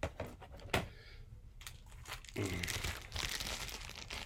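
Packaging being handled, crinkling and rustling, with a couple of light knocks in the first second.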